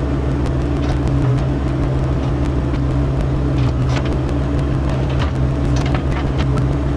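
Mini excavator engine running steadily at working speed, with occasional short knocks.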